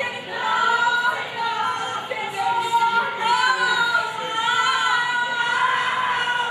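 Several women's voices singing together in long held notes that rise and fall, with music beneath.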